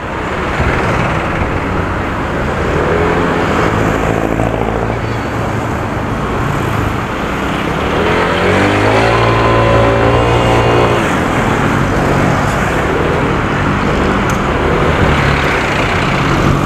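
Honda Airblade 150 scooter's single-cylinder engine and CVT running under way in traffic, over wind and road noise. About eight seconds in an engine's pitch rises, holds for a couple of seconds, then eases off. The CVT pulley has just been re-degreed, so the scooter needs more revs before it pulls.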